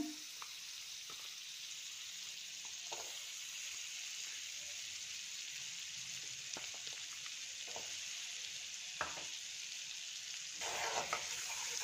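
Butter sizzling as it melts and heats in a kadhai: a steady fizzing hiss with scattered small pops. Near the end a steel spoon stirs it, and the sizzle grows louder.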